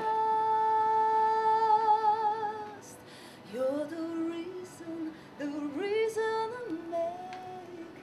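Music with a woman's singing voice: one long high note that begins to waver with vibrato partway through, then, after a short pause, a slower phrase of lower notes, several of them slid up into.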